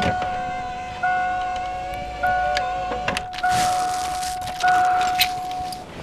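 A car's warning chime dinging steadily about once every 1.2 seconds, each ding fading before the next, until it cuts off near the end. A lower, wavering whine runs under the first half, with a couple of clicks after it.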